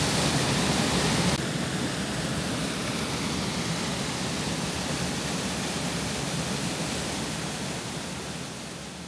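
Small cascading waterfall pouring into a rocky pool: a steady rush of falling water. It drops a little in level about a second and a half in and fades away near the end.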